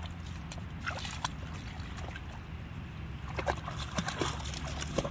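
Light splashing and sloshing of pond water as a Great Pyrenees paddles, with scattered small splashes that cluster about three and a half seconds in, over a steady low rumble.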